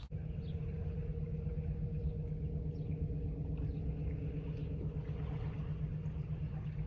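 A steady low engine hum over a rumble, starting abruptly and holding an even pitch throughout, with a few faint bird chirps above it.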